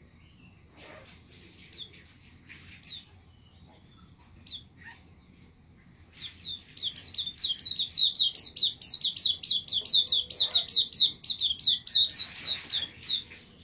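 Caged white-eye (pleci) singing. A few scattered high chirps come first. About six seconds in it breaks into a long, fast run of high song notes, several a second, which stops shortly before the end.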